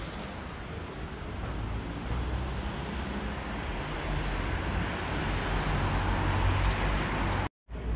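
City street traffic noise with a steady low rumble, swelling louder over the last few seconds as a vehicle goes by. The sound cuts out abruptly near the end.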